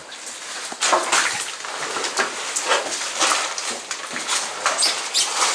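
Footsteps crunching and crackling through plastic bottles and debris, a run of irregular scuffs and crinkles.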